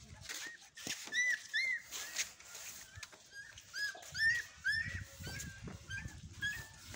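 Puppy whimpering: a string of short, high-pitched whines, each rising and falling, about two a second, starting about a second in.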